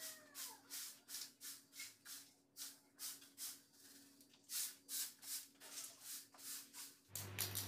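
Faint broom sweeping in quick rhythmic swishes, about three strokes a second. The swishes stop near the end, and a low steady hum takes over.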